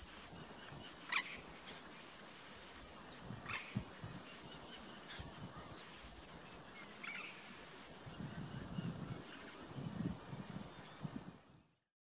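Burrowing owl giving a few short, harsh, bark-like calls, about a second in, around three to four seconds in and again around seven seconds in. Behind them runs a steady high insect drone with regular ticking. The sound fades out at the very end.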